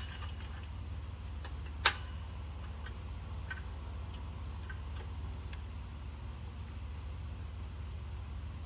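Two sharp clicks about two seconds apart, the first right at the start, then a few faint ticks, over a steady low hum and a constant high-pitched thin tone.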